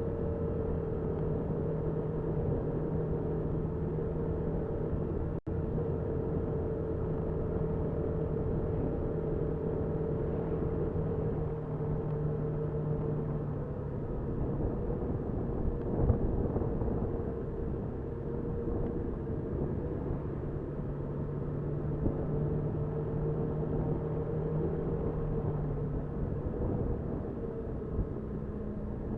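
Motorcycle engine running steadily on the road, with wind and road noise, heard through a dashcam microphone. There is a brief dropout in the sound about five seconds in and a single sharp knock about halfway through.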